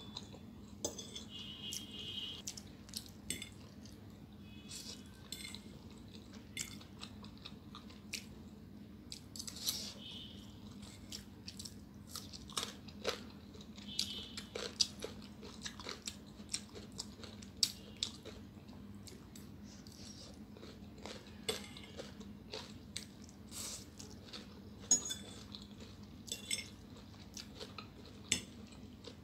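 Close-miked eating sounds: wet chewing and crunching of noodles and a cucumber slice, with a metal fork clicking and scraping against a ceramic plate now and then. A faint steady hum runs underneath.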